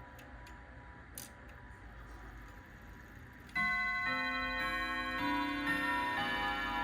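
Grandfather clock's Hermle-made Urgos triple-chime movement ticking. About three and a half seconds in, its hammers start striking the chime rods in a melody, a new note about every half second, each ringing on under the next.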